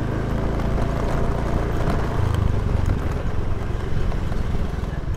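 Motorbike engine running steadily while riding along a road, with wind and road noise.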